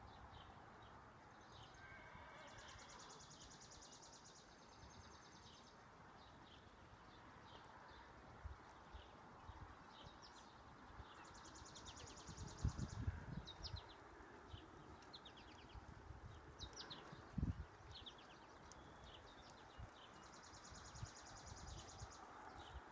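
Quiet open-air ambience: a bird repeats a high buzzy trill three times among scattered short chirps. A few dull low thumps come through, loudest about halfway through and again a few seconds later.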